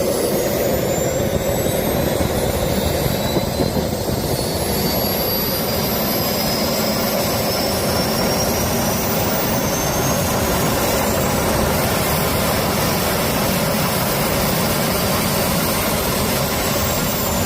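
Jet engine running on a test start, a loud steady rush with a high-pitched turbine whine that climbs slowly in pitch as it spools up.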